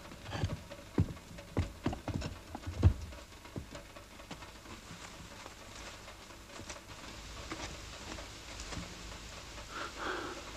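A handful of footsteps and light knocks in the first three seconds, then a steady patter of rain.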